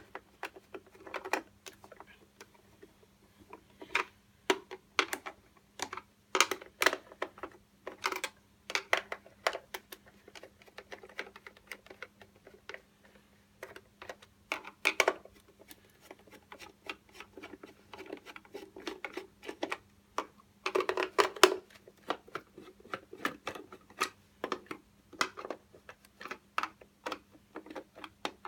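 Hand screwdriver turning the screws of a hoverboard's casing: irregular small clicks and rattles, now and then in quick runs.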